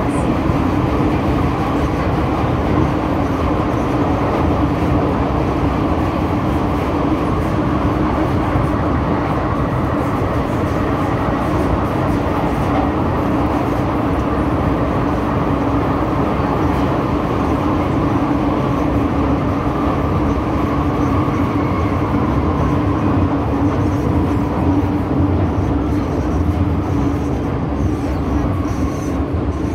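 MTR M-Train running between stations on the Kwun Tong line, heard from inside the car: a steady rumble of the train in motion with a constant hum at one pitch, easing off slightly near the end.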